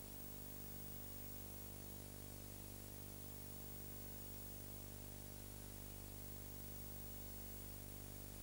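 Steady hiss with a low electrical hum and nothing else: the background noise of a recording without sound.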